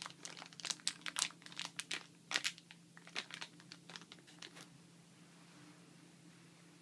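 Packaging crinkling and crackling as the new hard drive is handled and unwrapped, a quick run of sharp crackles that stops about four and a half seconds in.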